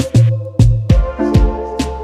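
Background music with a steady beat: deep, pitch-dropping kick drums, crisp high hits and held synth notes.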